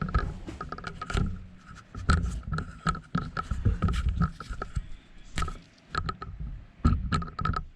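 Irregular clicks, knocks and light scraping of parts and tools being handled, with no power tool running.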